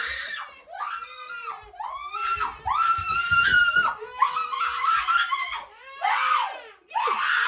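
A woman screaming and crying in fright, in a string of about six high-pitched cries that rise and fall in pitch.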